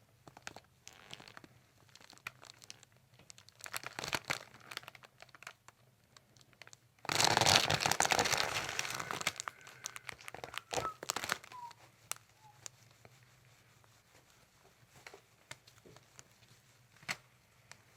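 Soft rustling and crinkling as the patient's head and shoulders shift on the chiropractic table's face paper and cushion, with scattered light clicks; a louder stretch of rustling comes about seven seconds in and lasts a couple of seconds.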